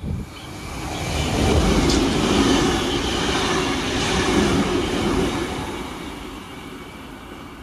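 Stainless-steel double-deck electric train passing the platform at speed: its rumble and wheel-on-rail noise swell over about a second, hold for a few seconds with a single sharp click, then fade as it runs out of the station.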